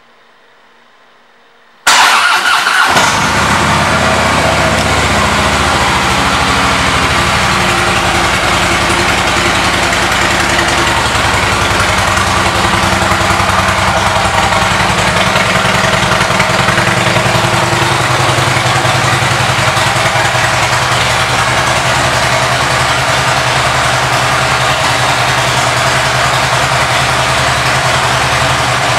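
2014 Harley-Davidson Ultra Limited's Twin Cam 103 V-twin, fitted with Rinehart exhaust pipes, starting about two seconds in. It catches at once and settles into a steady idle.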